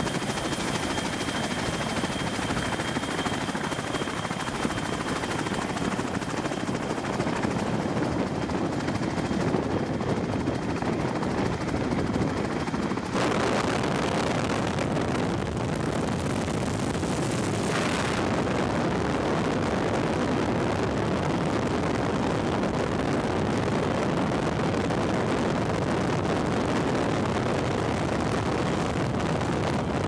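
Helicopter rotor and turbine engine noise, a dense steady drone with a thin high whine over it for roughly the first dozen seconds. The sound shifts abruptly twice, about 13 and 18 seconds in, as the footage cuts between helicopters.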